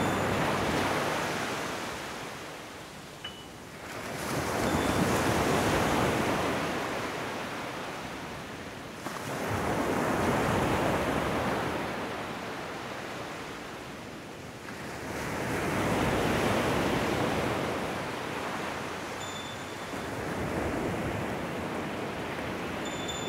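Small waves washing up onto a sandy beach and drawing back, the surf swelling and fading in slow surges about every five seconds.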